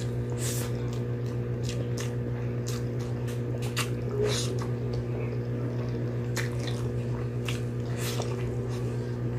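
Close-miked eating: wet chewing, lip smacks and mouth clicks as mouthfuls of rice are taken by hand, over a steady low hum.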